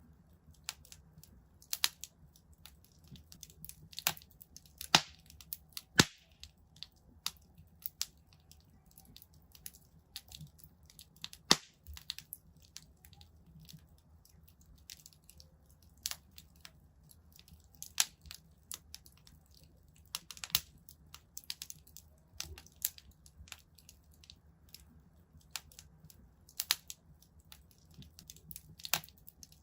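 Wood fire in a fireplace crackling, with irregular sharp pops and snaps over a low steady rumble of the flames; the loudest pops come about 5, 6 and 11.5 seconds in.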